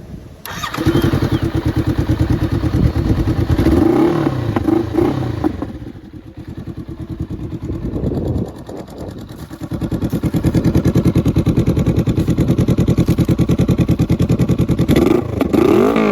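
Honda Rebel 500's parallel-twin engine starting up about half a second in, then being revved through its exhaust for a sound check. There are quick revs a few seconds in and again past the middle, a steady raised run for several seconds, and more quick blips near the end.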